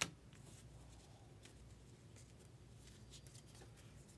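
Faint handling of baseball trading cards: one sharp click at the start, then near silence broken by a few soft ticks and rustles.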